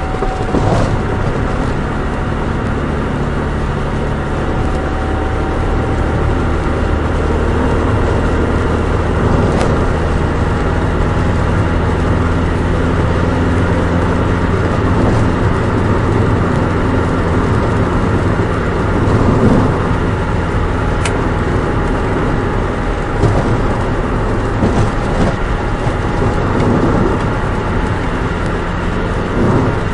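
Nissan Micra 1.3 on the move: the engine runs at a steady drone under road noise, with a few brief clicks.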